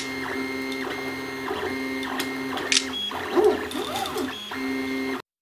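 3D printer running, its stepper motors whining in steady tones that stop and start in short runs as the head moves. Partway through the pitch slides up and down a few times, and it cuts off abruptly near the end.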